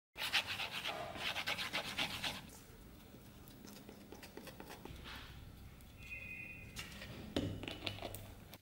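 A small stick scraping and rubbing epoxy glue over a wooden handle scale: rapid scratchy strokes for about two and a half seconds, then quieter scraping. A light knock comes near the end as the scale is set onto the metal tang.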